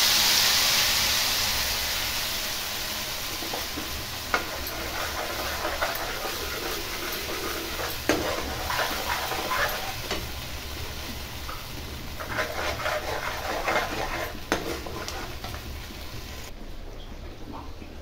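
Creamy cashew-paneer paste sizzling loudly as it is poured into hot oil in a kadhai, the hiss fading over the first couple of seconds. A steel spoon then stirs and scrapes the frying paste around the pan with scattered clicks, under a softer steady sizzle.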